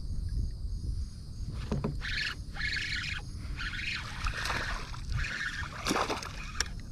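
Kayak paddle strokes splashing and dripping in a rapid series of surges, with a few sharp knocks of the paddle against the plastic hull, over a steady low wind rumble on the microphone.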